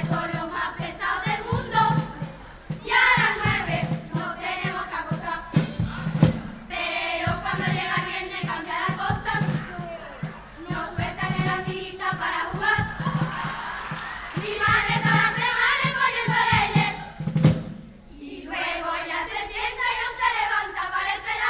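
Children's chirigota chorus singing in unison in phrases broken by short pauses, with steady drum beats underneath.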